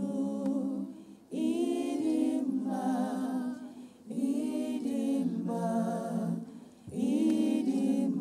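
Women's voices singing unaccompanied, in three long held phrases with a wavering pitch and short breaths between them.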